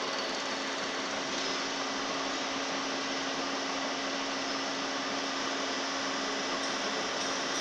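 Milling machine running steadily with an even hum and a constant low tone, the sound of the mill at work on a spiral reamer.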